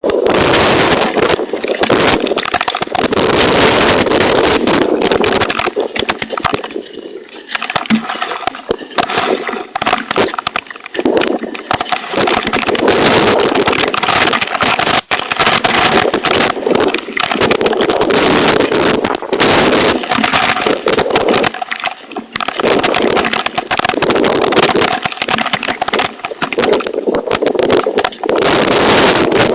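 Hailstones pelting a hail protector cover: a loud, dense clatter of impacts over a rushing haze. The clatter swells and eases every few seconds, with brief lulls.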